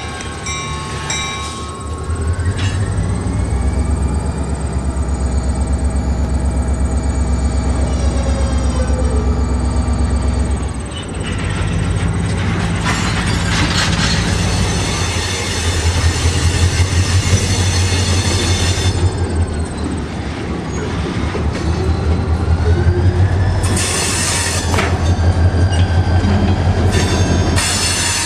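EMD 645 diesel locomotive prime mover working under load with a heavy, pulsing rumble. The rumble rises about two seconds in, eases briefly near eleven seconds, then builds again. A high whine climbs early on and falls away around twenty seconds.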